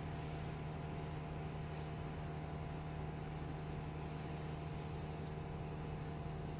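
Steady machine hum with a strong low tone and a few fainter higher tones, unchanging throughout.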